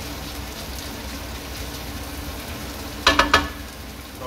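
Prawns frying in garlic butter and oil in a frying pan, a steady sizzle as they are stirred around. About three seconds in come three sharp knocks in quick succession, the loudest sound.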